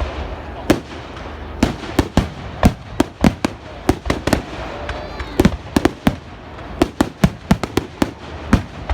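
Fireworks going off in a rapid, irregular string of sharp cracks and bangs, several a second.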